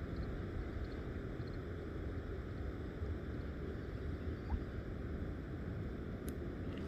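Steady low outdoor rumble, with a faint click a little before the end.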